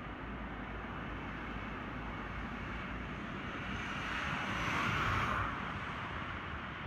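Steady background road traffic noise, with a car passing close below whose tyre noise swells to a peak about five seconds in and then drops away quickly.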